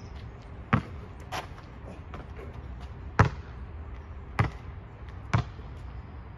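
A basketball bouncing on an asphalt court: five sharp, irregularly spaced bangs over a steady low background noise.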